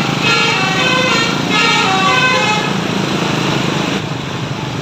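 Bus musical horn (telolet type) playing a short stepping tune in two phrases, over a vehicle engine running; the tune stops a little before three seconds in and the engine noise carries on.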